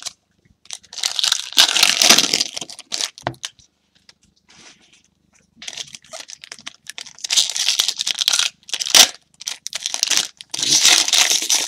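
Foil trading-card packs being torn open and their wrappers crinkled, in three stretches of rustling with a sharp crack about nine seconds in.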